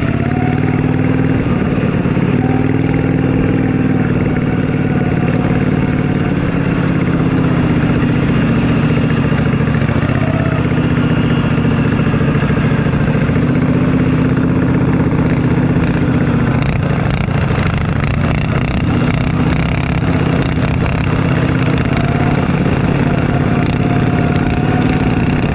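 Racing riding lawn mower engine running hard at close range, its pitch rising and falling slowly as the throttle changes through the corners, with other mowers running just ahead.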